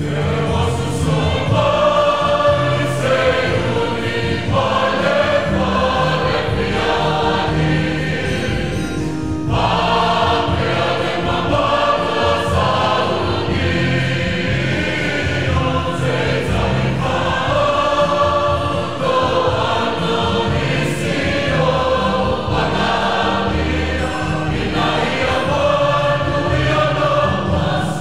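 Church choir singing a Samoan song of praise, with instrumental accompaniment underneath.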